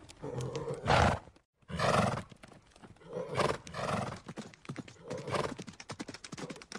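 Horses whinnying several times in a row, with hooves clopping between and after the calls.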